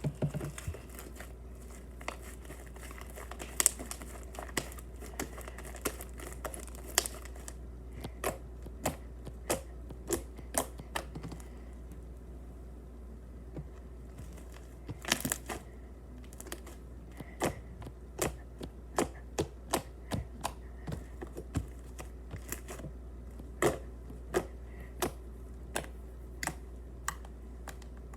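Fluffy slime being squeezed and kneaded by hand, giving irregular sharp clicks and pops, sometimes several in quick succession.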